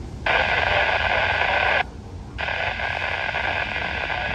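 Radio scanner static: a loud hiss that switches on abruptly, cuts out for about half a second near the middle, then comes back on, as a transmission breaks squelch. Underneath runs the low rumble of freight cars rolling past.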